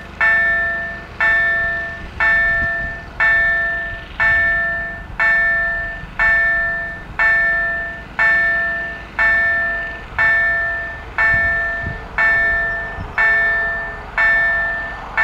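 Railway level-crossing warning bell striking about twice a second, each ring dying away before the next, warning that a train is approaching.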